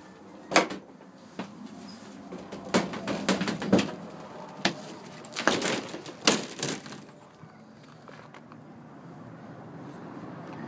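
A run of sharp plastic knocks and clacks from a portable toilet's door and latch being handled and shut, the loudest about half a second in, then two clusters of clatter in the middle.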